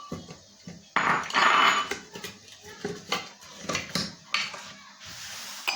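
Kitchen handling sounds at a pressure-cooker pot: a series of sharp knocks and clatter, with a noisy rush lasting about a second near the start.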